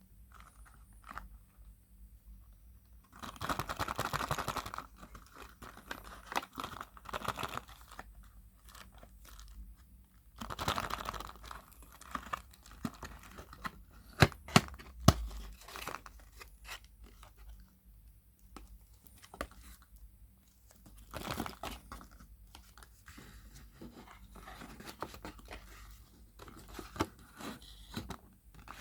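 Surprise egg wrappers being torn and crinkled open by hand, in several bursts of rustling and tearing. About halfway through come three sharp clicks close together.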